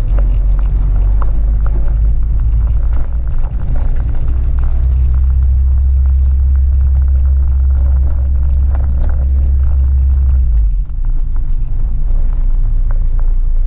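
Acura RSX engine and road noise while driving: a steady low rumble that grows stronger about four seconds in and eases off near the end.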